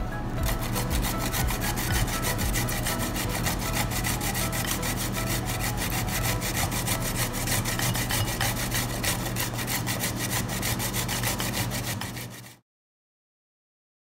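A raw potato being grated by hand on a plastic grater: a rapid, even scraping, stroke after stroke. It cuts off suddenly about a second and a half before the end, leaving dead silence.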